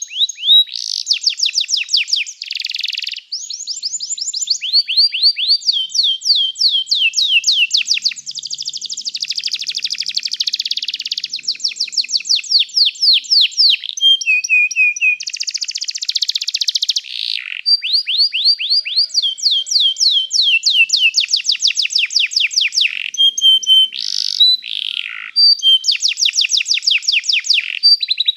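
Domestic canary singing a continuous song of fast, high-pitched trills, rapidly repeated notes that switch to a new trill every second or two, with a few buzzy rolls among them.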